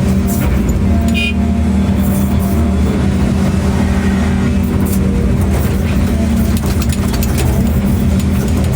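Large diesel engine of heavy machinery running steadily at constant speed, with scattered clicks and a short high squeak about a second in.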